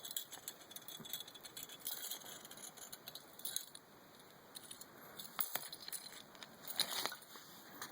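Faint, scattered clicks and light rattling of small hard parts being handled, with a couple of sharper ticks near the end.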